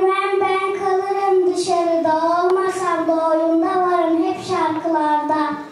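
Young children singing together in unison, holding long notes that slide gently between pitches, with no instrumental backing; the singing breaks off near the end.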